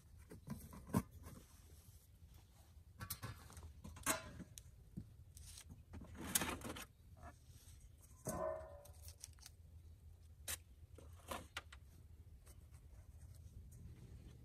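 Metal lids clinking, tapping and scraping on aluminum camping ovens as they are lifted off and set back on, with one ringing metal clank a little past the middle.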